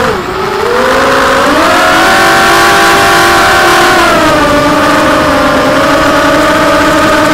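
Gravity 250 FPV racing quadcopter's motors and propellers whining, heard from its onboard camera. The pitch climbs over the first two seconds, drops about four seconds in, then holds steady as the throttle changes.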